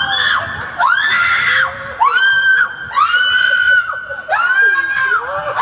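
A run of high-pitched screams, about five in a row roughly a second apart, with other voices underneath.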